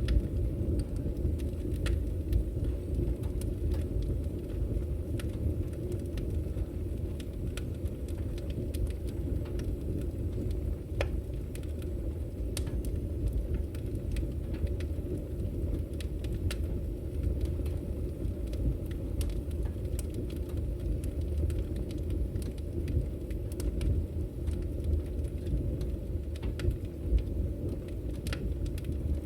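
Fire burning in a chimney fireplace: a steady low rumble with scattered sharp crackles and pops throughout.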